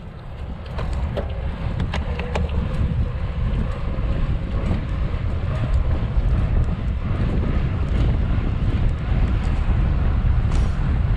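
Wind buffeting the microphone of a camera on a moving bicycle: a steady, noisy low rumble that builds a little after the first second.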